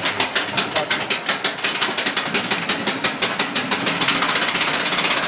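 Roller coaster chain lift hauling the car up the lift hill: a rapid, even clacking of the chain and the anti-rollback ratchet, quickening about four seconds in.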